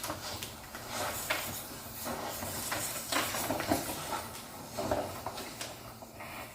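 Irregular knocks, clicks and scrapes of hands handling parts inside a refrigerator, over a steady hiss.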